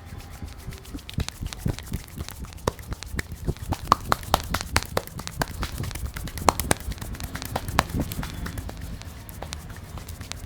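Rapid, irregular clicking and tapping, several sharp clicks a second, over a low rumble; the clicks start abruptly and thin out near the end.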